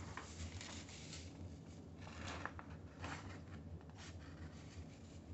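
Faint rustling of a large sheet of drawing paper being handled and lifted, in a few soft brushes, over a steady low hum.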